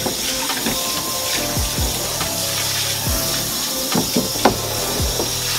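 Garden hose spraying water onto a boat hull, a steady hiss, under background music with low drum hits.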